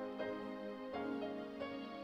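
Choral music from a church service: a quieter passage of soft, sustained chords, with the notes shifting a few times.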